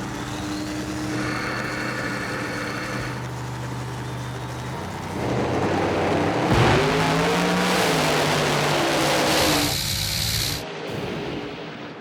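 No-prep drag cars idling at the start line, then launching at full throttle about five seconds in, with a loud burst of engine noise that cuts off abruptly near the end.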